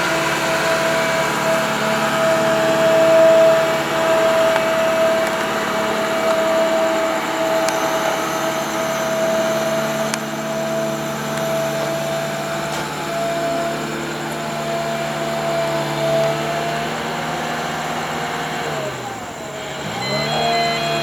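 An engine running with a steady whine. Near the end its pitch drops briefly and then climbs back.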